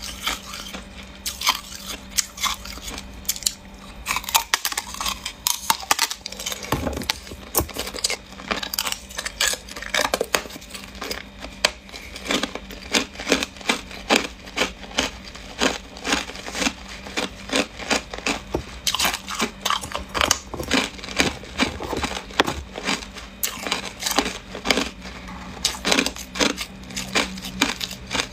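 Hard clear ice being bitten and chewed up close: a run of sharp crunches and crackles, a few a second, with a brief lull about four to six seconds in.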